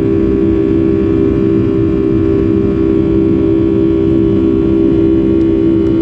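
Steady drone of a Boeing 757-300's jet engines heard inside the passenger cabin, a loud low hum with several steady tones above it.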